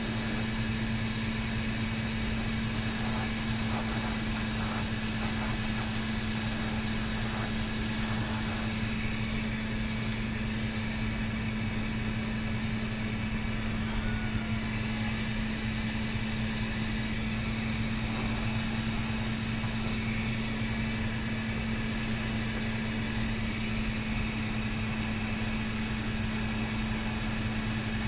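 Steady hiss of a lit glassblowing bench torch over a constant low mechanical hum, unchanging throughout.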